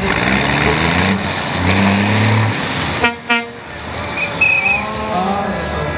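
Off-road trial truck's engine revving and labouring as it crawls through deep mud, its pitch rising and falling. About three seconds in, two short loud sounds come close together, followed by a brief dip in the engine noise.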